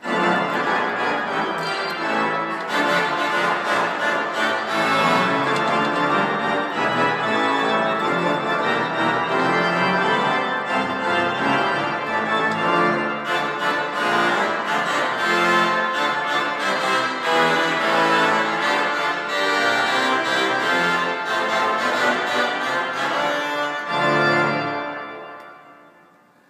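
Organ music, the show's closing theme played on a church organ, with many held notes sounding together. It fades out over the last couple of seconds.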